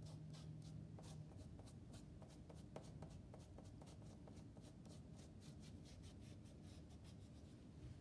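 Foam brush dabbing and stroking diluted paint onto a soaking-wet bandana on a plastic lid: faint, quick scratchy pats, several a second.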